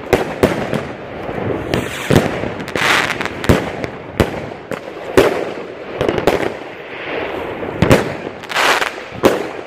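Aerial fireworks going off: an irregular run of sharp bangs, sometimes several close together, with hissing between them.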